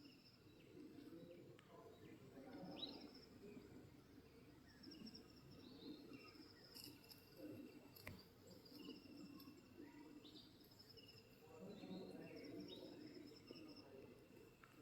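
Faint morning birdsong: several birds give short, repeated whistled notes over a quiet outdoor background, with a faint low murmur that swells twice.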